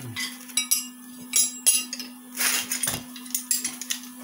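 Metal hand tools clinking and rattling as they are picked up and set down, in several short bursts, over a steady low hum.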